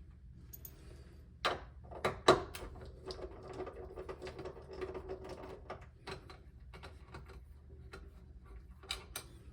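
Clicks and knocks from a safe's electronic keypad plate being unscrewed and handled. The sharpest knock comes just after two seconds in, and a faint steady hum runs through the middle.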